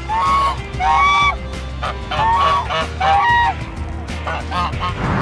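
Geese honking: a series of short, nasal calls, about five bouts repeated every second or so.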